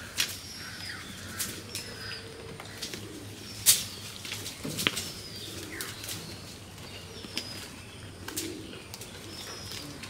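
Goats browsing on a heap of cut branches: scattered sharp snaps and cracks of twigs, the loudest about four seconds in. Small birds chirp now and then in the background.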